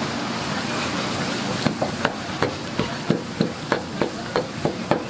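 Kitchen knife cutting squid on a plastic cutting board: quick, regular knocks of the blade on the board, about three a second, starting about a second and a half in.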